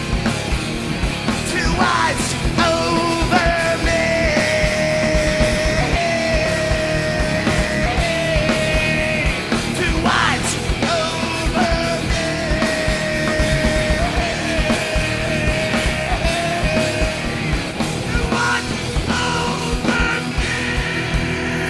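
Rock band playing live: electric guitars, bass and drums, with a long held melody line over them.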